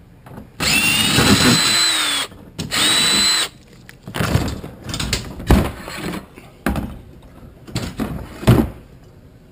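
Cordless drill-driver with a Torx bit backing bolts out of the steel top bracket of an IBC tote cage: two short runs of the motor's whine, the first about a second and a half, the second under a second. Then irregular knocks and clatter of the metal bracket being worked loose and lifted off.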